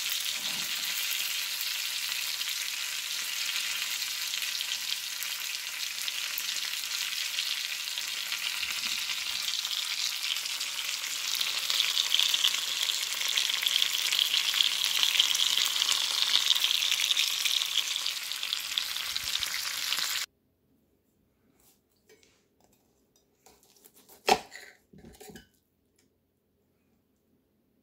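Rib eye steak and onions sizzling in a frying pan, a steady frying hiss that grows louder about halfway through and then stops abruptly. After it, a few light clinks and knocks of a knife and fork on a plate as the steak is cut, one sharper clink the loudest.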